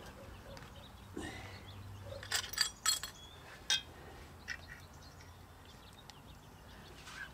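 A few light metallic clinks spaced over a couple of seconds, each with a short ring: small steel parts and tools being handled while a front wheel hub is fitted onto its spindle.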